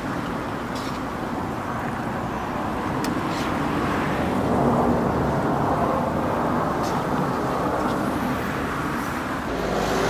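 Chicken thigh pieces sizzling as they fry in a pan of hot oil, with a few sharp clicks of metal tongs turning the pieces.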